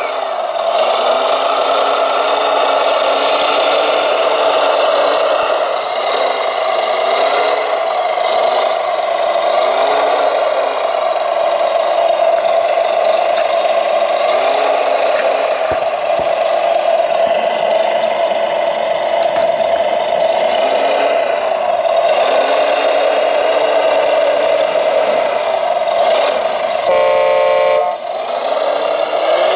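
Hydraulic RC Volvo L250G wheel loader working its block grapple: a steady whine from its pump and motors, the pitch rising and falling as it lifts and sets a stone block. A brief horn-like tone sounds near the end.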